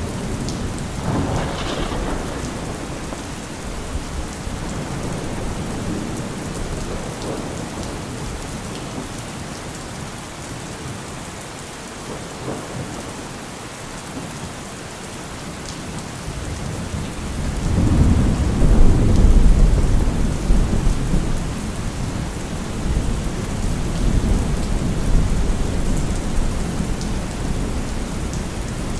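Steady heavy rain with thunder: a crackling peal about a second in, then a deep rumble that swells about two-thirds of the way through and rolls on under the rain.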